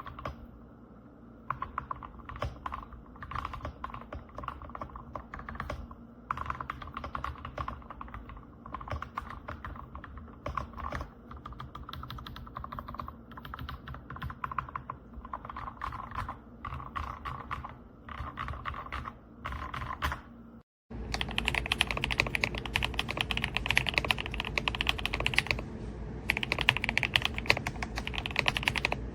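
Fast continuous typing on a Kisnt gasket-mounted mechanical keyboard with linear switches. About 21 seconds in, the sound cuts out for a moment, and the typing then carries on louder and brighter.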